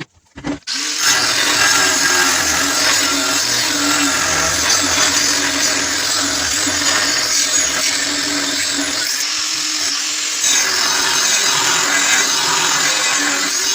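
Angle grinder cutting 10 mm steel plate: a steady motor whine over a harsh grinding hiss, starting about a second in. The load eases briefly about nine seconds in, then the cut picks up again.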